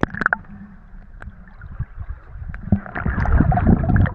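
Water heard from a camera held underwater by a swimmer: a few sharp knocks right at the start, then muffled gurgling and rushing water from his strokes, growing louder from about three seconds in.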